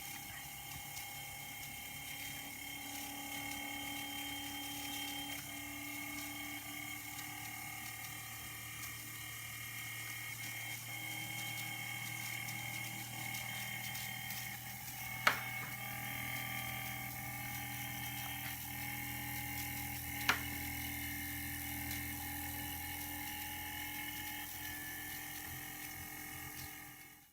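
Saito Heron's ball steam engine (a steam-driven aeolipile) running, giving a steady mechanical whirr with a high whine. Two sharp clicks come about 15 and 20 seconds in, and the sound cuts off suddenly at the end.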